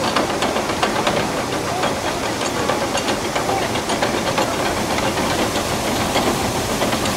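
Water rushing through the open paddles of a deep canal lock, a steady loud hiss, with scattered light clicks over it.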